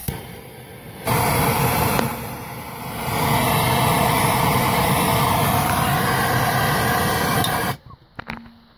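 Handheld propane torch burning with a loud, steady rushing sound, lit about a second in and shut off suddenly near the end, with a brief dip about two seconds in. It is heating a rusted, seized tie-rod end nut to free it.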